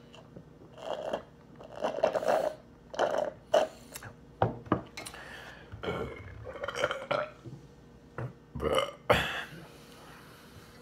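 A man burping repeatedly: a string of loud belches, one after another with short pauses, after downing a glass of carbonated energy drink.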